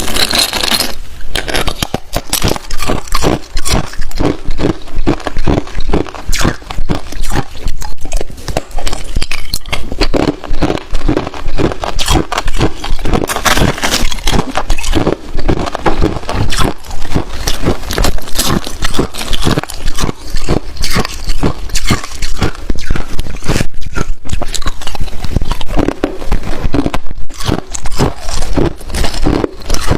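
Hard clear ice being bitten and chewed close to the microphone: a fast, unbroken run of loud crunches and cracks, several a second.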